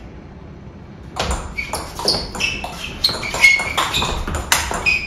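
Table tennis rally with the 44 mm large ball: a quick run of sharp clicks as the ball strikes the rackets and the table, several a second, starting about a second in.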